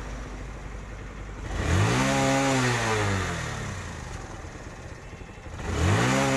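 TVS Star City 110 cc single-cylinder four-stroke motorcycle engine idling, then revved twice with the throttle. The first rev climbs in pitch and falls back to idle, and the second climbs again near the end. No pat-pat popping comes from the exhaust as the throttle closes: the misfire backfire on deceleration is gone after carburettor tuning.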